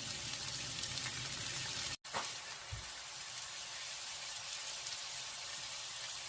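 Sweet potato pancake (goguma-jeon) frying in oil in a pan, with a steady sizzling crackle that drops out for a moment about two seconds in.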